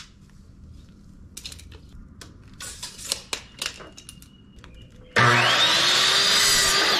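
A few light clicks and taps of a tape measure and pencil on a board, then about five seconds in an electric miter saw starts suddenly and loudly, its motor whine rising in pitch as the blade spins up and cuts a 2x2 board, beginning to fall near the end.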